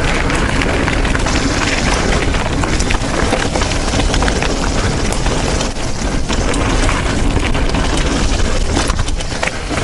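Mountain bike descending a dirt trail at speed: a steady rush of wind and tyre noise on the action camera's microphone, with constant rattling clicks and knocks from the bike over rough ground.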